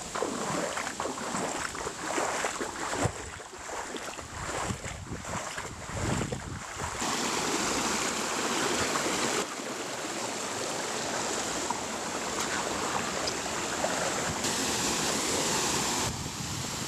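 Irregular rustling and knocks for the first several seconds, then the steady rush of water running over rocks in a small stream cascade and waterfall.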